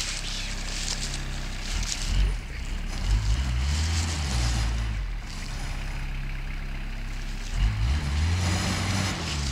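Diesel engine of a forestry skidder hauling spruce logs, running steadily and twice revving up under load and easing back down.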